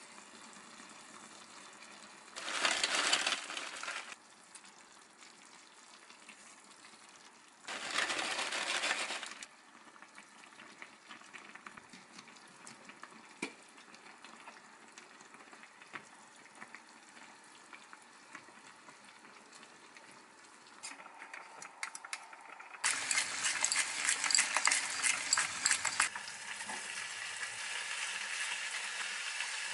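Hot oil with green onions sizzling in a frying pan, with two short loud spells in the first ten seconds. About three-quarters of the way through comes a sudden loud sizzle and rustle as a heap of shredded cabbage goes into the hot pan, settling into steady frying.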